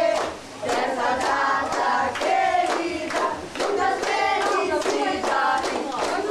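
A group of adults and children singing a birthday song together, clapping their hands in time.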